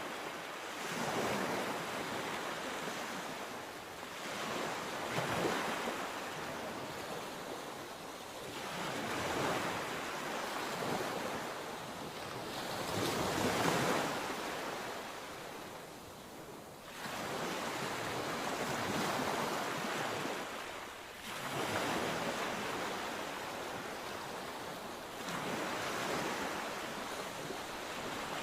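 Sea waves breaking and washing in, coming in surges every few seconds, the biggest about halfway through after which there is a short lull before the next wave crashes in.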